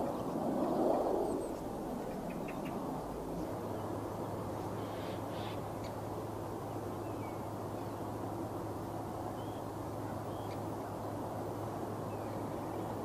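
Jet noise from a Eurowings Airbus climbing away after takeoff, loudest about a second in and fading away within the first two seconds. Then open-air background with a steady low hum and a few scattered bird calls.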